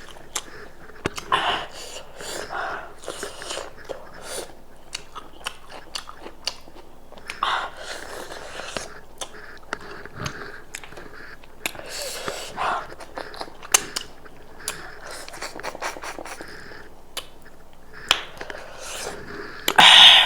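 Close-miked chewing and biting of goat meat, with many wet mouth clicks and short noisy breaths between bites. The loudest burst comes near the end.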